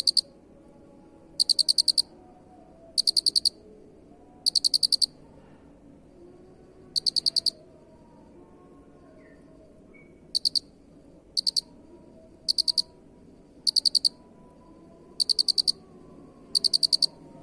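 Cricket chirping: short trains of rapid, high-pitched pulses, each well under a second long, repeating every second or so, with a longer pause near the middle.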